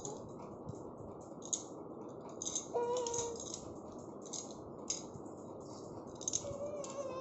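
A seven-month-old baby's sputtering, clicky mouth noises: the baby's imitation of a motorcycle. Two short squeaky voice sounds come about three seconds in and again near the end.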